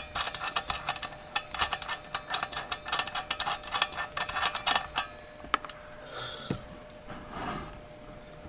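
Metal filler cap on a Feuerhand 276 oil lantern's tin fuel tank being twisted and unscrewed by hand: rapid, irregular metallic clicks and ticks for about five seconds. After a last single click, two short rustling scrapes follow as the cap comes off.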